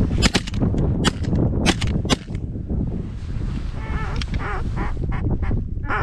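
Ducks quacking: a quick run of short, sharp quacks, then a few longer, drawn-out calls about four seconds in, over wind noise on the microphone.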